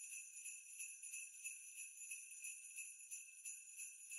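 Quiet jingle bells shaken in a steady, even rhythm, a bright high ringing with no low sound beneath it.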